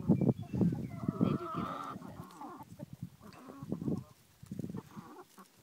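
Backyard hens clucking as they feed, with one longer, higher call between about one and two seconds in.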